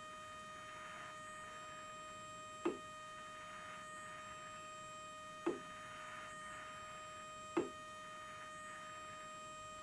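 Steady electrical whine with several overtones from the powered test bench, cut by four sharp clicks two to three seconds apart, each followed by a faint hiss. The clicks and hiss come from the pressure on the static line being lowered by hand in steps to simulate a climb.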